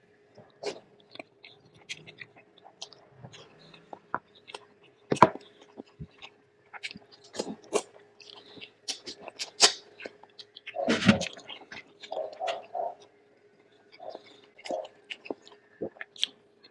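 Close-miked eating of bulalo beef shank soup: wet chewing and mouth smacks, with scattered clicks of a spoon or utensils against the bowl and one sharp knock about five seconds in.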